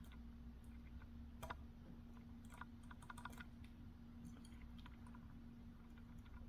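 Faint, scattered clicks and light scraping of a lock pick jiggling the pins inside a BiLock NG lock. The clearest click comes about a second and a half in, with a cluster around three seconds. A steady low hum runs underneath.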